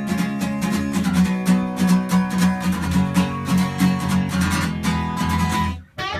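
Guitars strumming a steady rhythm over sustained low notes in a stripped-down rock song's instrumental passage, no singing. Near the end the music stops abruptly for a moment, then comes back in.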